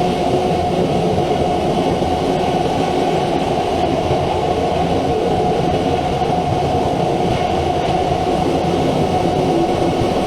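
CNC milling machine running with a steady, even mechanical noise, mostly low and mid-pitched, with no breaks or sudden strikes.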